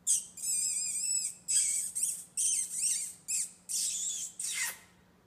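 Puggle puppies squealing and whining: a run of about eight short, high-pitched, wavering squeals.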